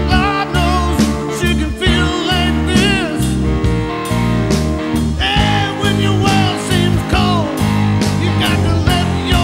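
A blues-rock song playing with a full band and a wavering lead electric guitar line.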